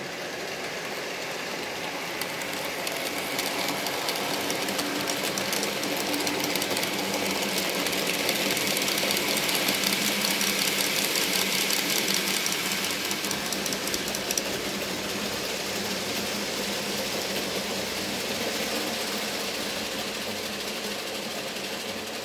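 N-scale model freight train running on the layout: the small motor's running noise with fast, fine clicking of the wheels on the track. It grows louder over the first few seconds and is loudest around the middle, as the train passes closest.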